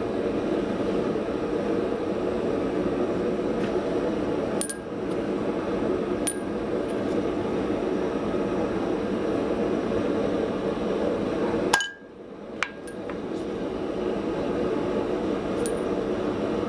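A handful of sharp metal-on-steel hammer blows, about five, each ringing briefly, over a steady roar. The loudest blow comes about twelve seconds in, where the roar cuts out suddenly and then builds back up over a couple of seconds.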